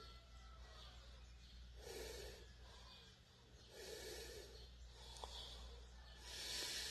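A sleeping person snoring, with a noisy snoring breath about every two seconds, three in all, over a steady low hum.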